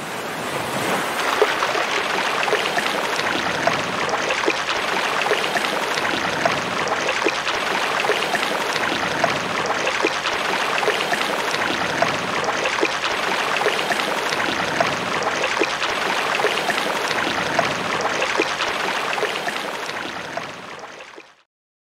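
Steady rushing noise, like flowing water, that dies away near the end.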